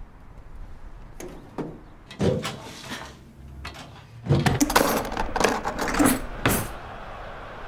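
An irregular run of sharp knocks and clatters: a few single hits early, then a dense, louder flurry of them lasting about two seconds that stops shortly before the end.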